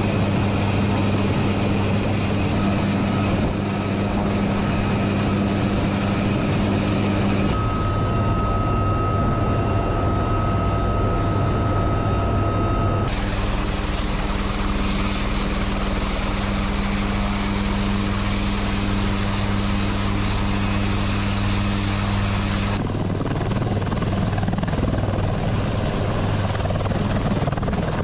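UH-1Y Venom helicopter running close by: a steady rotor drone with a high steady turbine whine over it. The sound shifts abruptly a few times, about a quarter, halfway and four-fifths of the way through.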